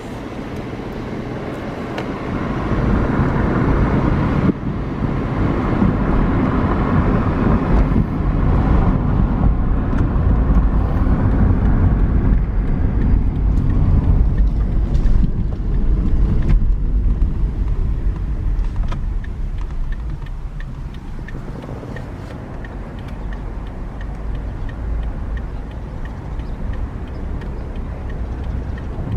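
A road vehicle driving, a low rumble that grows louder about two seconds in and eases off after about eighteen seconds.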